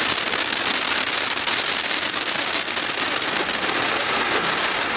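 Two Jorge SOS ground fountains burning together, a loud steady hissing spray of sparks laced with rapid crackling.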